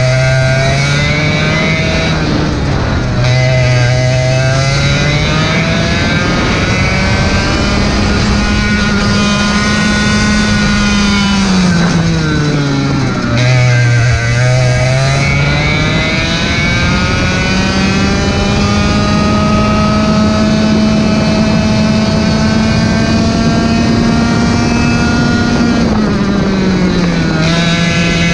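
Racing kart engine at full throttle. Its pitch climbs steadily as it pulls and drops sharply each time the driver lifts for a corner, three times here, with the longest climb in the second half along the straight.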